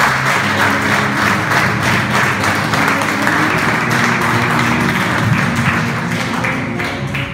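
Audience applauding steadily in a hall, with music playing underneath.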